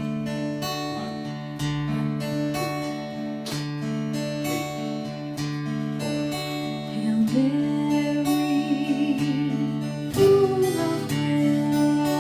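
Acoustic guitar playing a slow hymn introduction, picked chords ringing over a steady bass note.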